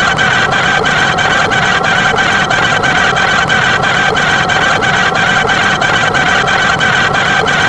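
A machine running steadily, with a high steady tone over a regular clicking beat of about four clicks a second.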